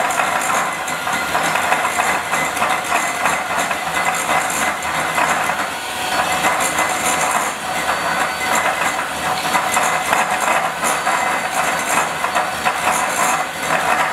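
Electric hand mixer running steadily at high speed, a motor whine over the clatter of its two wire beaters whipping butter in a glass bowl: the first beating of the butter for buttercream.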